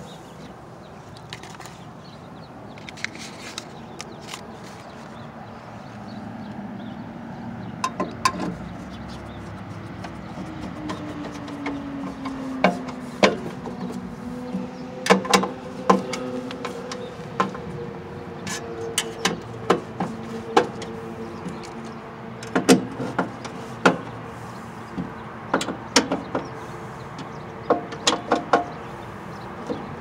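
Screwdriver work on the sheet-metal mounting of a furnace inducer draft motor: scattered sharp metallic clicks, taps and knocks as screws are driven and the motor is handled. A faint steady hum comes in from about ten seconds in.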